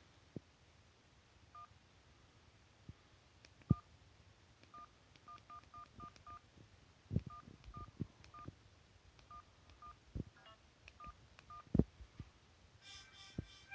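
Sony Ericsson W380i keypad tones: about twenty short two-tone beeps, one per button press, with low clicks from the phone being handled. Near the end a ringtone starts playing from the phone's speaker.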